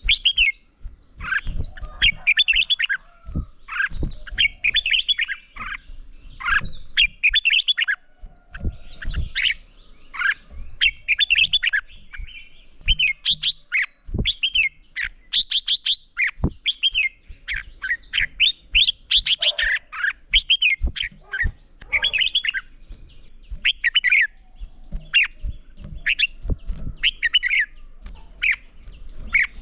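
Red-whiskered bulbul singing: short, quick warbled phrases repeated one after another, with sharp clicks between them.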